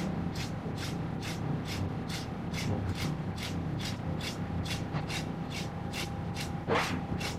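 Background music: a light ticking beat about twice a second over a steady low hum, with a short swishing sweep near the end.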